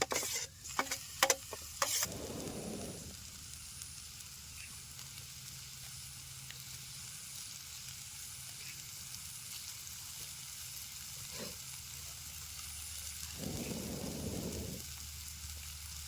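Chopped tomato frying with onion in hot oil in a pan, sizzling steadily. There are a few sharp knocks of stirring against the pan in the first two seconds.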